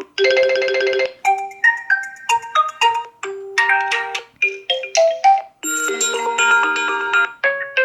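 Built-in alarm tones of an Oppo Reno6 Pro 5G phone playing from its speaker: an electronic melody of short, separate pitched notes. It opens with a fast-repeating stretch and has a fuller, held passage about six seconds in.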